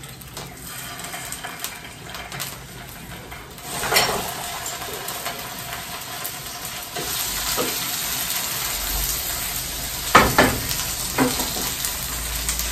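Pieces of nopal cactus sizzling as they go into hot oil in a frying pan, the sizzle swelling about four seconds in and then holding steady. A few sharp clinks of dishware against the pan, a cluster of them near the end.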